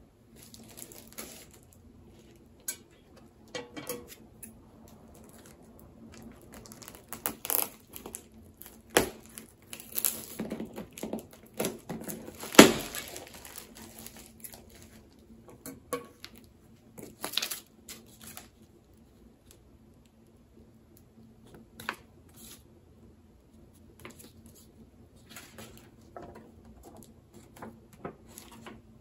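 A mail-order package being opened by hand: irregular tearing and crinkling of the packing material, with scattered small knocks and one sharp crack about halfway through.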